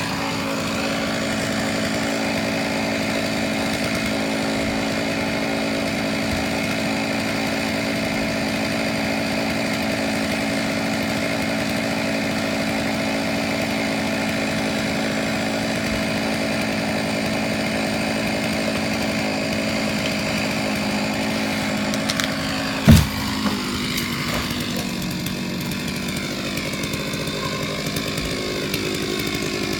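Chainsaw running steadily while cutting through a tree trunk. About 23 seconds in there is a single sharp, loud crack or thump, and after it the saw's pitch slides down as it eases off.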